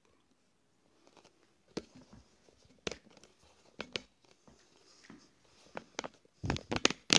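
Handling noise from the recording device being moved and repositioned: scattered clicks and knocks with faint rustling between them, and a louder cluster of knocks near the end.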